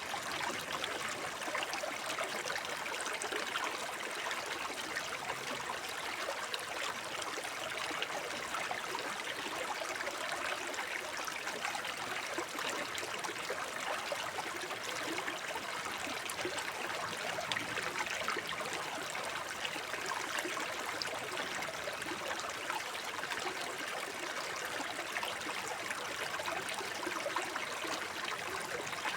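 Shallow forest brook babbling and trickling over stones, a steady flow of water.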